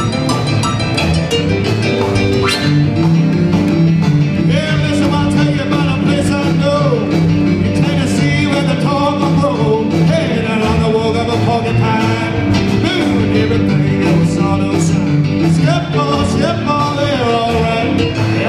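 Live rockabilly band playing: upright double bass, hollow-body electric guitar, keyboard and drum kit, with a man singing over them.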